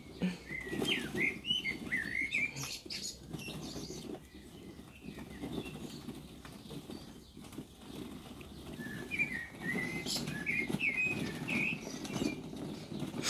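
Young Dalmatian puppies tussling over cloth toys on a blanket, a steady soft scuffling and rustling. Two runs of quick high bird chirps come over it, one near the start and one about two-thirds of the way through.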